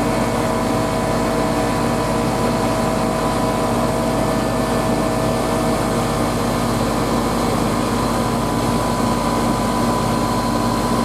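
Air-conditioning condensing unit running steadily: compressor hum and condenser fan, several constant tones over an even noise. It is running on a freshly replaced run capacitor, with its refrigerant pressures right where they should be.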